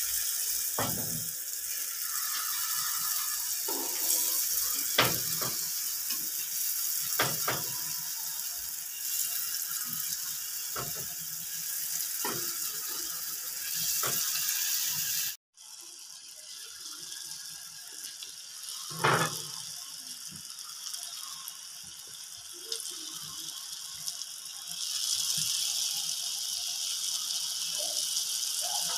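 Jalebi batter frying in hot oil in a shallow pan: a steady sizzling hiss, with a few sharp knocks. The sound breaks off briefly about halfway through.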